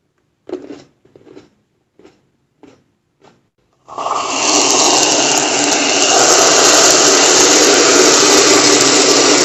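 Aerosol can of whipped cream spraying: a loud, steady hiss that starts about four seconds in and runs for about six seconds as the cream is dispensed into a cup. A few short, faint clicks come before it.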